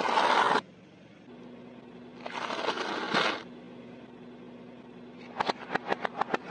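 Car tyre rolling over and crushing things on pavement. A loud crunch at the start and a longer crackling crunch about two seconds later, then near the end a quick run of sharp cracks and pops, several a second.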